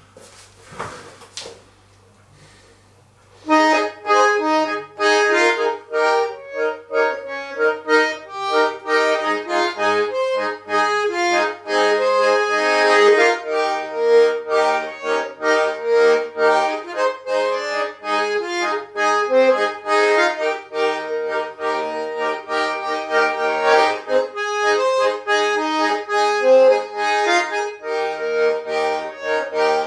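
Schwyzerörgeli (Swiss diatonic button accordion) playing a lively traditional Swiss folk tune, starting about three and a half seconds in. A short noise comes about a second in, before the playing starts.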